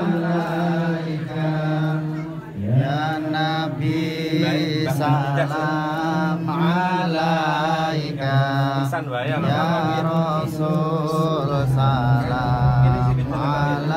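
Chanting of Islamic devotional verses: a continuous, melodic chant with gliding pitch that runs over a steady low held tone.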